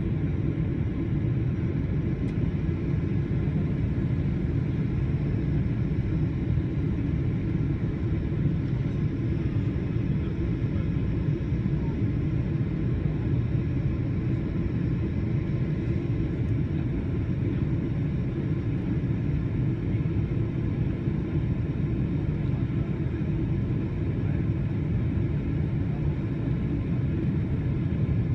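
Steady low rumble inside the cabin of a Boeing 777-300 airliner on final approach, heard from a window seat beside the engine.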